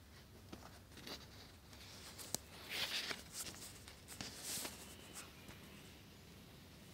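Faint handling noise: rustling scrapes and a few sharp clicks as the recording camera is picked up and moved by hand.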